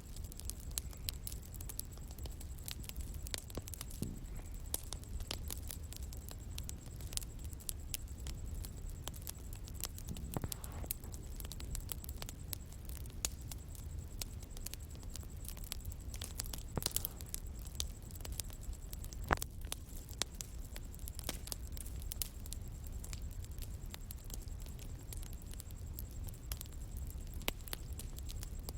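Bonfire burning in the open, crackling with irregular sharp snaps and pops over a low steady rumble, with a thin steady high tone underneath.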